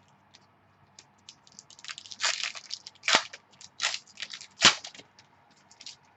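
Trading cards and their packaging being handled: a run of short crackles and snaps, with four louder ones spread through the middle.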